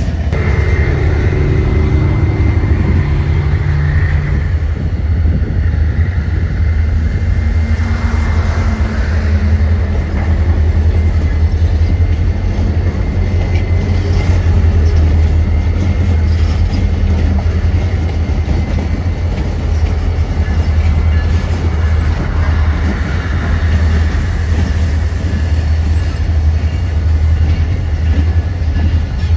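A train running by with a heavy, steady rumble, with a few pitched tones in the first few seconds.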